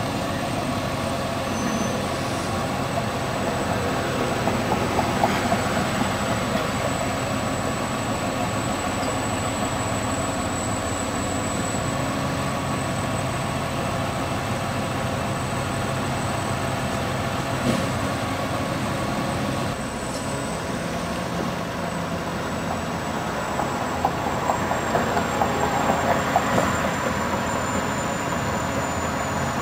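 Freightliner Condor automated side-loader garbage truck running steadily with its diesel engine, with louder clattering about five seconds in and again near the end.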